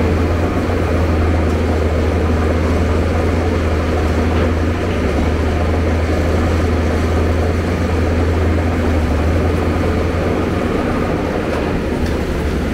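Hyundai Robex 290LC excavator's diesel engine running under working load with a steady low drone while the machine swings its boom and bucket between the rubble pile and a truck.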